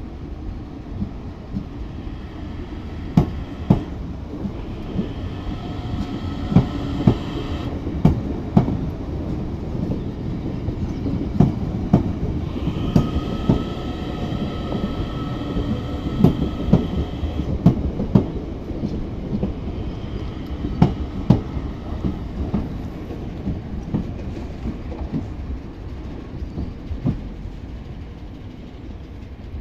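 DART electric train, unit 8603, running past: a steady rumble with irregular sharp clacks as its wheels cross rail joints. A high whine comes and goes twice, and the sound eases off near the end.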